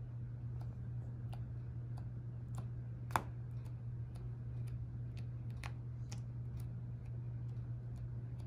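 Light, irregular clicks, about one or two a second, as the felt tip of a three-colour marker is pressed down into soft white slime dot after dot. One click just after three seconds in is louder than the rest. A steady low hum runs underneath.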